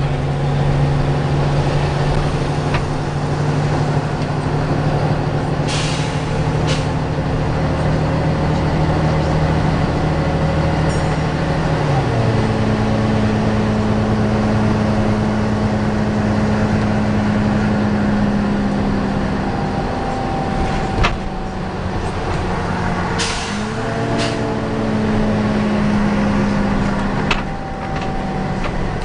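Volvo B9TL double-decker bus heard from on board: a steady engine and cooling-fan hum, the vacuum-cleaner-like 'hoover' drone this bus is known for, which shifts to a new pitch about twelve seconds in. Two pairs of short air-release hisses come through, about six seconds in and again past twenty seconds.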